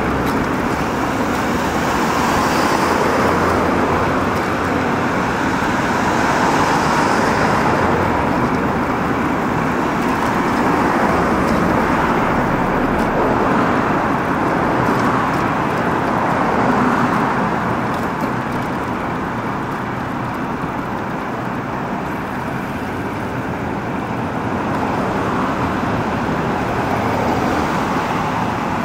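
City road traffic noise: a steady, dense rush of motor traffic with no single event standing out, a little quieter in the second half.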